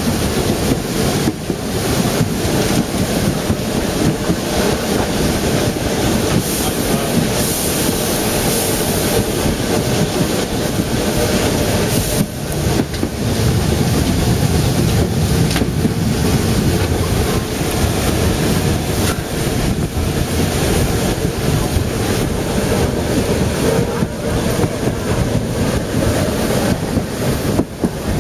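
Running noise of a narrow-gauge train hauled by steam locomotive 99 6101, heard from on board, mixed with steady wind buffeting the microphone.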